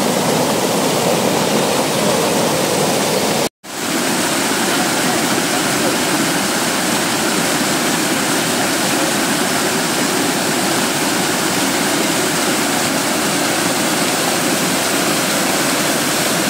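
Small waterfall pouring over a mossy rock ledge into a pool: a loud, steady rush of falling and churning water. The sound cuts out for an instant about three and a half seconds in.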